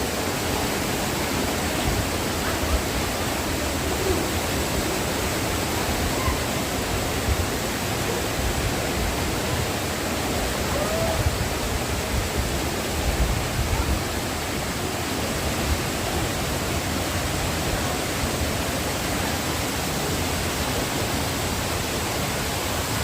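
Waterfall water rushing, a steady loud hiss with no breaks.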